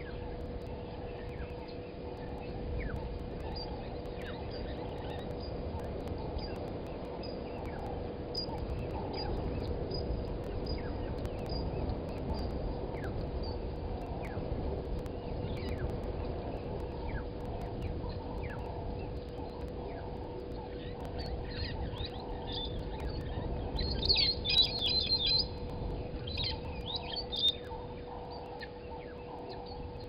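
Brown-headed parrots calling: scattered short chirps, then a burst of loud shrill calls about 24 seconds in and a few more near 27 seconds.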